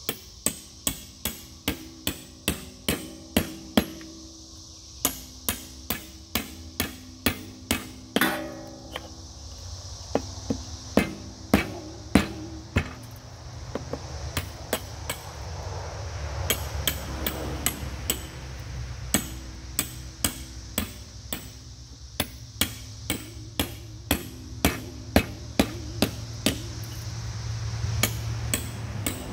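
Hammer blows on a steel safe, sharp metallic strikes in runs of about two a second with short pauses between runs, each ringing briefly. The safe's outer steel jacket and the concrete fill behind it are being beaten out to get at the inner wall.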